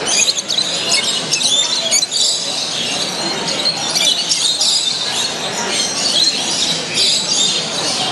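Many small cage birds, canaries, finches and budgerigars, chirping and twittering all at once in a dense, unbroken, loud chatter.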